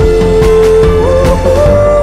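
Pop music with a steady beat and a long held melody note that steps up in pitch about a second in and again near the end.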